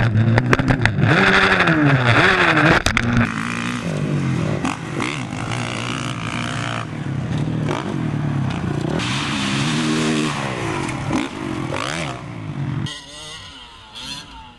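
Dirt bike engines revving up and down, pitch rising and falling repeatedly as the throttle is worked, with a few sharp clicks in the first few seconds. The engine sound drops away to a quieter level near the end.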